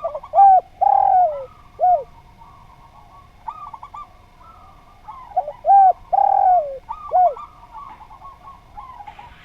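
Spotted dove (derkuku) cooing: two loud phrases of about four short, falling coo notes each, a few seconds apart, with fainter cooing behind them.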